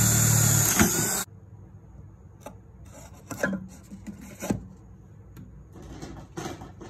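DeWalt cordless drill boring a hole in wood, running loudly for just over a second and then stopping suddenly. Afterwards come several light knocks and rubs of wood as a queen marking cage is fitted into the hole.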